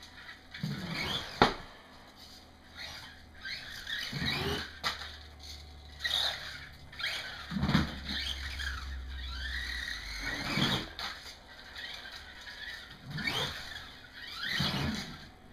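Micro RC truck's small electric motor and gears whining in short bursts, the pitch rising and falling as it is throttled up and down, with a sharp knock about a second and a half in.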